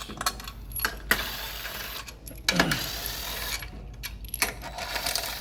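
Metal clinks and rattles of hand tools and loose bolts being handled while parts are taken off a car transaxle, with scattered sharp knocks throughout.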